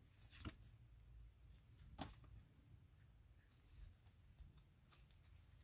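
Near silence with a few faint clicks of a stack of Pokémon trading cards being handled and slid in a gloved hand.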